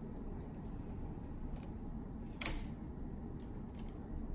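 A small 3D-printed plastic cable clip being handled and pressed onto a printer's ribbon cable and braided sleeve: faint light clicks and one sharp plastic snap about two and a half seconds in.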